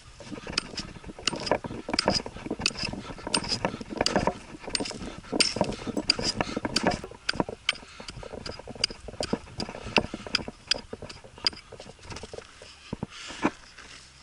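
A pick digging into hard ground: many irregular sharp strikes with scraping of soil and stones between them, busiest in the first half.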